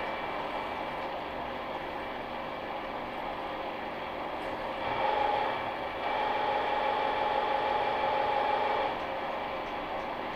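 Milling machine's angle head turning a drill into the end of a forged steel truck tie rod: a steady mechanical whine of the spindle and gearing with the drill cutting. It gets a little louder from about five seconds in and drops back near nine seconds.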